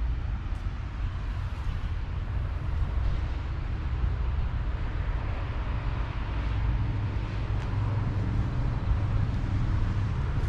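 Low, steady rumble of a vehicle's engine, a little stronger in the second half.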